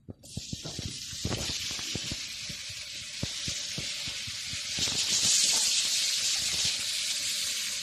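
Raw cubed chicken sizzling as it slides into a pan of hot olive oil, a steady hiss full of small crackling pops. The sizzle grows louder about five seconds in as more pieces go in.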